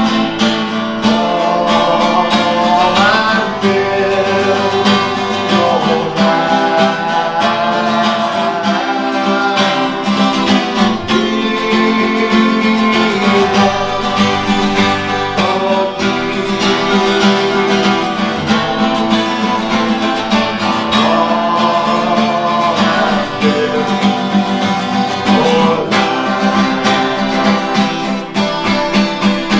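Acoustic guitar strummed steadily, playing a worship-song accompaniment.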